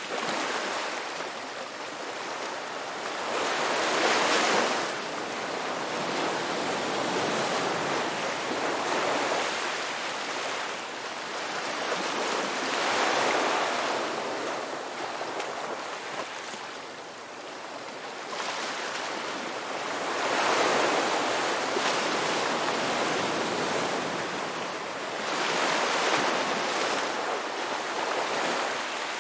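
Sea waves breaking and washing on a shore, the surf swelling into a louder surge every several seconds, four times.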